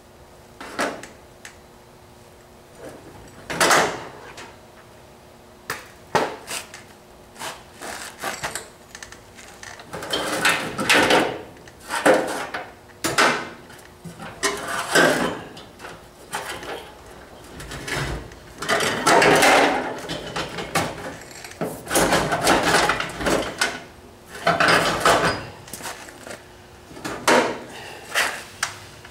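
Irregular knocks, clanks and scrapes from hand tools and sheet metal being handled during body-panel work, over a faint steady hum.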